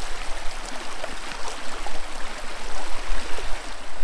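Shallow river water running over rocks at a stony crossing: a steady rushing hiss of flowing water.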